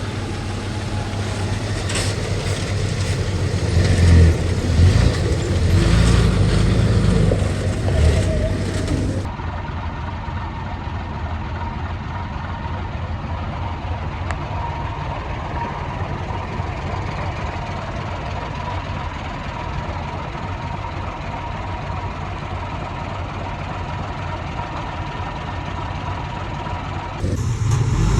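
Heavy earth-moving machinery diesel engines running, louder and uneven with surges for the first nine seconds or so. The sound then changes abruptly to a steadier, quieter engine drone with a thin steady whine, which runs until shortly before the end.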